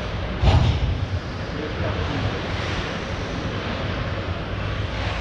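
Ice hockey arena ambience: a steady hum and hiss of the rink hall with faint distant voices, and a single sharp thump about half a second in.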